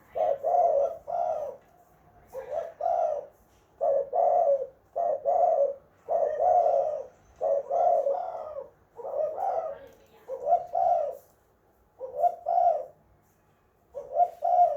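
Spotted dove (tekukur) cooing: phrase after phrase of two or three low coos with short pauses between them.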